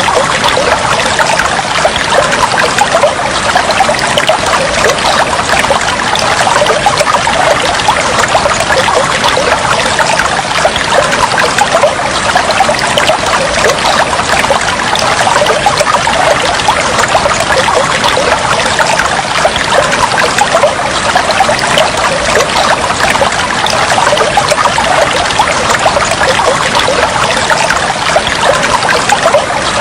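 Water trickling and flowing steadily, an even, unbroken splashing sound.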